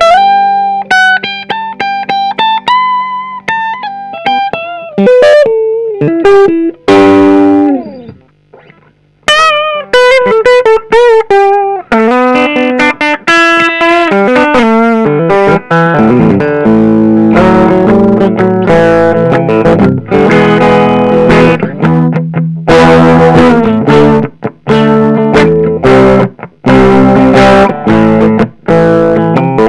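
Electric guitar, a 1970s CG Winner neck-through, played solo: single-note melodic lines with bends and a long slide down about seven seconds in, then a brief gap. From about halfway it moves into dense, heavier chordal playing.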